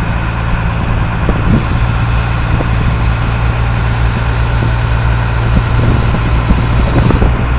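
Washing machine running with a steady low hum. A high hiss starts about a second and a half in and stops near the end.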